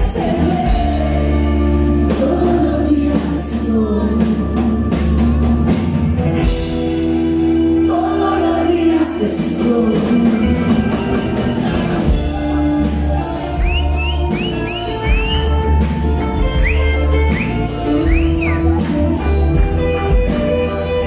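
A live rock band playing a song with a woman singing lead over electric guitar, bass and drums, recorded from the audience, with strong bass. A few short high sliding notes sound in the second half.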